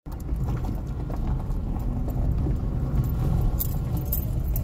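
A car's cabin while driving slowly on a gravel road: a steady low rumble of tyres and engine, with scattered small clicks and rattles.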